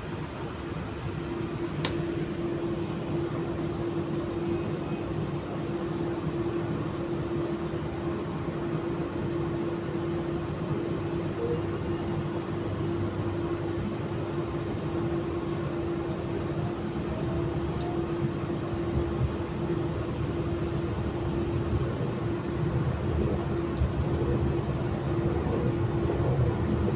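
Steady running hum inside an AM class electric multiple unit carriage, with a constant mid-pitched tone and a low rumble and a few faint clicks. The noise grows a little louder toward the end as the train travels along the line.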